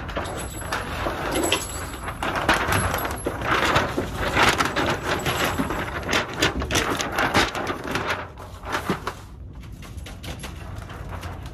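Paper shooting target rustling and crinkling as it is handled right up against the microphone: a dense, uneven run of crackles that dies away about nine seconds in.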